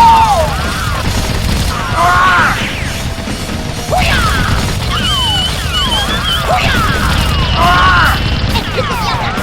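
Background music laid over repeated quick falling-pitch electronic sound effects and a dense low rumble.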